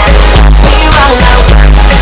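Loud background music with a heavy bass beat and a melody.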